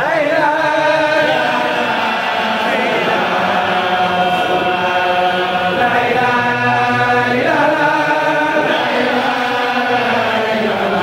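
A congregation of voices chanting a religious chant together in unison, on long held notes that glide slowly between pitches.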